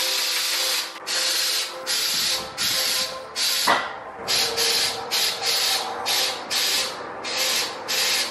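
Air suspension being aired out: air hissing from the bags in short repeated bursts, about one and a half a second, as the car drops to its lowest. One short knock about halfway through.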